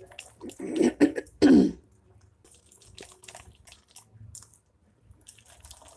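A hand beating a thick paste of ground chana dal and peas in a glass bowl: soft squishing with small scattered clicks. Two short vocal noises, not words, stand out in the first two seconds.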